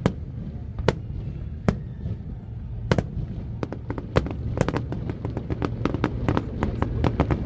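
Fireworks going off: a few single sharp bangs about a second apart, then a quickening stream of cracks from about three and a half seconds in, over a steady low rumble.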